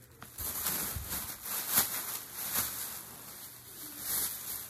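Rustling handling noise as skeins of yarn are picked up and moved about, in a run of short rustles with a louder one about two seconds in.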